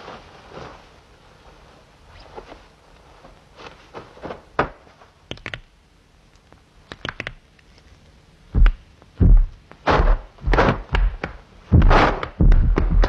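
Film sound effects of a martial arts warm-up: faint scattered clicks and taps at first, then a rapid series of about six loud, heavy swishing thuds in the last five seconds as high kicks are thrown.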